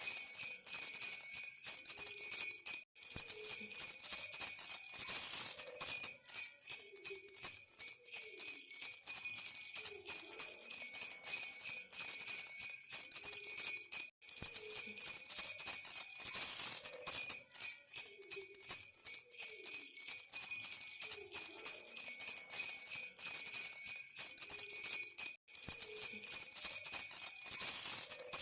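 Baby rattle with small bells shaken continuously, a dense steady jingling with ringing bell tones. It cuts out for an instant three times, about every eleven seconds.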